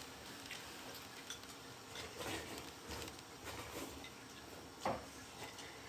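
Faint, scattered clicks and taps of chopsticks and bowls at a meal, with one sharper click about five seconds in.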